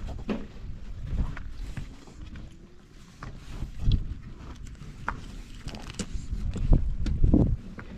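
Gusty low rumble of wind on the microphone, with scattered short knocks and clicks.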